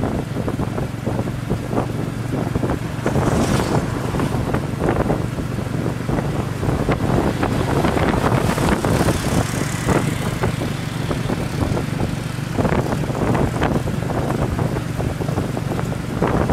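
Riding in an open motorbike tuk-tuk: the motorbike engine's steady low hum under rushing wind that buffets the microphone in gusts.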